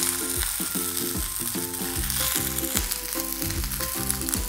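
Whole peeled hard-boiled eggs sizzling as they shallow-fry in a little hot oil in a stainless steel pan, with background music playing underneath.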